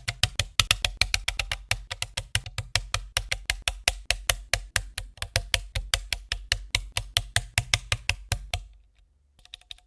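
Background music with a fast, even clicking beat over a steady bass line, cutting off suddenly near the end.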